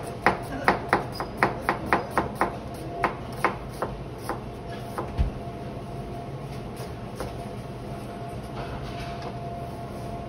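Knife chopping food on a cutting board, quick even strokes about four a second that slow and stop about four seconds in, with one low thump shortly after. A steady faint hum continues underneath.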